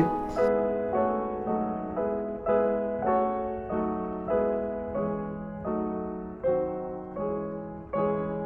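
Background piano music: slow, even chords struck about every three-quarters of a second, each fading before the next.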